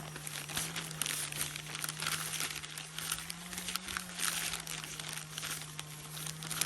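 Trout frying in hot vegetable oil, with a steady crackling and sizzling of many small pops. A steady low hum runs underneath.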